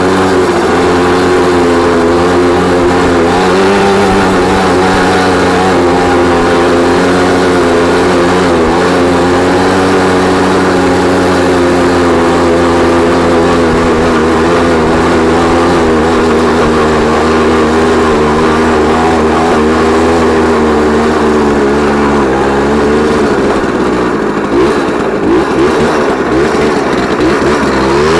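Jawa 50 type 21 Pionýr moped's 50 cc single-cylinder two-stroke engine running under load while ridden, geared with a 14-tooth sprocket. The revs hold fairly steady with small wavers, then ease off and turn uneven in the last few seconds before climbing again at the very end.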